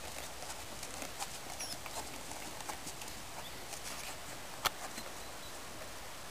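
Horse walking on a sand arena surface: soft, uneven hoof falls with small clicks of hooves and tack, and one sharper click about two thirds of the way through.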